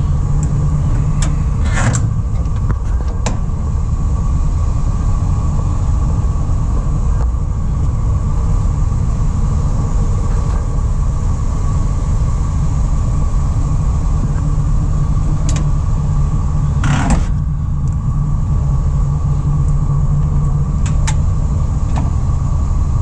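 The van's engine idles with a steady low rumble. Over it come a few short clicks and one louder clunk about seventeen seconds in, from the side compartment doors and their latches being handled.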